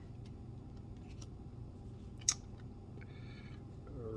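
Trading cards being handled: a sharp click a little over two seconds in, a few faint ticks and a short brushing sound, over a low steady hum.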